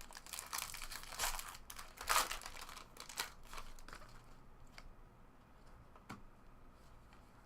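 Trading-card pack wrappers crinkling and tearing as packs are opened and cards handled, in bursts of rustling through the first half, then only a few faint clicks.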